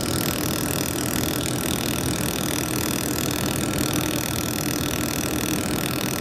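Handheld laser welding machine running: a steady hum and hiss with a few held tones, unchanging while the weld is made.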